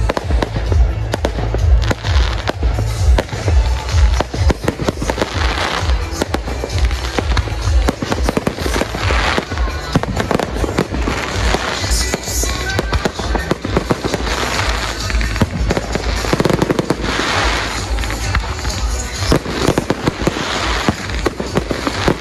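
Fireworks display: a rapid run of aerial shells bursting with deep bangs, with waves of crackling from crackle stars every few seconds, over music.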